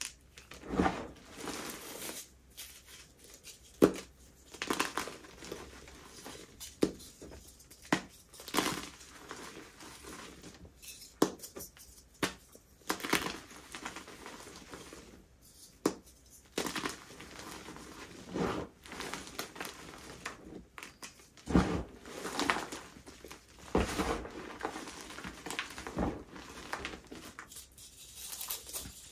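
Dyed, baked gym chalk being crushed. There are irregular crunches about every second or two, with softer flaky crumbling between them.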